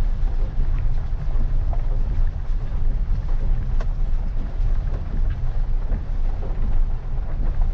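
Steady low rumble inside the cabin of a Maruti Suzuki Ignis rolling slowly in reverse along a wet gravel track, with scattered light ticks of rain on the car.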